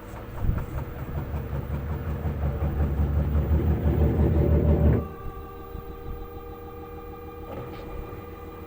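A faulty washing-machine drum rumbling and rattling as it turns. The noise builds for about five seconds, then cuts off suddenly, leaving a quieter, steady hum with a few whining tones.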